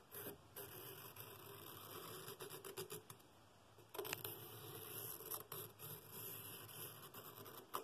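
Pencil scratching on paper as it is drawn around the inside edge of a wooden bowl ring, tracing a cut line. The faint scratching stops for about a second roughly three seconds in, then resumes.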